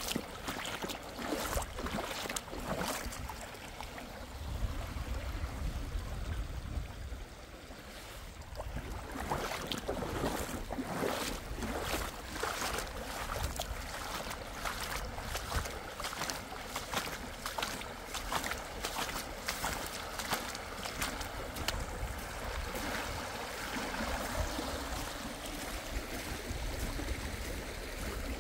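Water of a flooded stream rushing and splashing, a continuous noisy wash.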